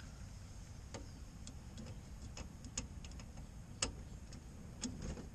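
Light, irregular clicks and taps of hand tools and small plastic parts being handled at a car's headlight assembly, about half a dozen, the sharpest a little under four seconds in.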